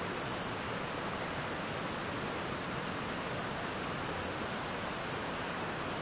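Creek water rushing over rocky rapids and a waterfall: a steady, even wash of water sound that does not change in level.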